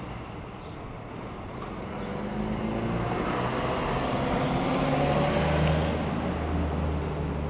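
1948 Harley-Davidson flathead V-twin engine running, a low uneven beat that grows louder through the middle and eases off near the end.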